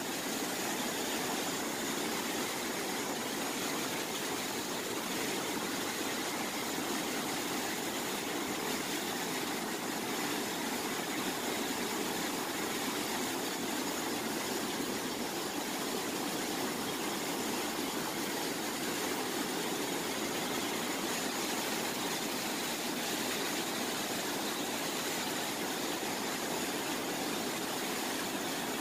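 Steady rushing of a broad curtain of water falling from a bridge into a canal and splashing onto the water below.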